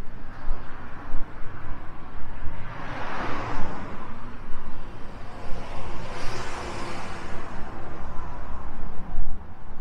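Cars passing on a street: one swells and fades about three seconds in, a second about six seconds in, over a steady low rumble.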